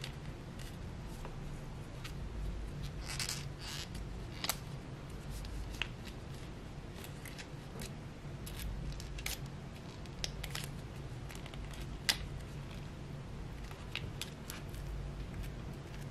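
Scattered small snips and clicks as a piece of leather is trimmed and handled by hand, over a low steady hum.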